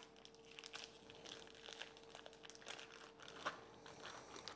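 Faint crinkling and rustling of plastic vacuum-sealer bags as they are cut open and handled, in many small, irregular crackles over a faint steady hum.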